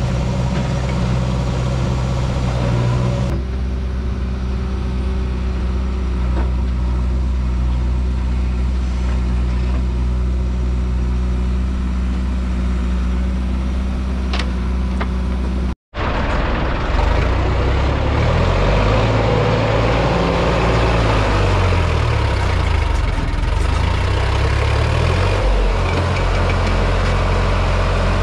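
Diesel engines of a JCB backhoe loader and a Sonalika tractor running steadily while the backhoe loads soil into the tractor's trolley. After a brief cut-out about halfway, the engine speed rises and falls several times for a few seconds, then settles again.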